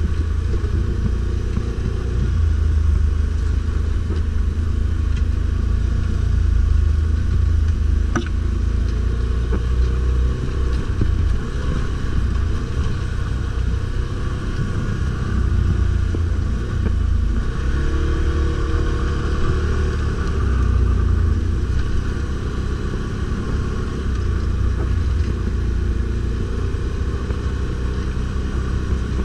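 Stels Guepard 850 ATV engine running under way, its pitch rising and falling as the throttle changes, with a deep steady rumble underneath. A single sharp knock about eight seconds in.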